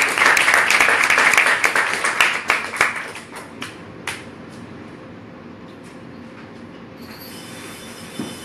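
Small audience applauding, the clapping thinning out and dying away after about three seconds. Then quieter room tone, and about seven seconds in a steady high hiss with a faint whine starts.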